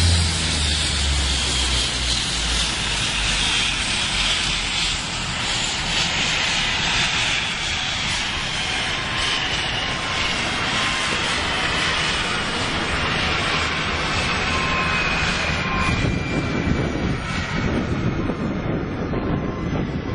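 Jet airliner's engines running on after the aircraft has gone off the runway into the dirt, a high whine slowly falling in pitch as they wind down over a steady rushing noise. A deep rumble fades away in the first couple of seconds.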